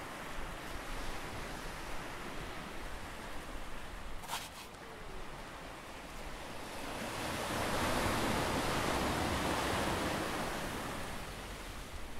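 Ocean surf washing steadily. A wave breaks and rushes louder from a little past halfway, then eases off near the end.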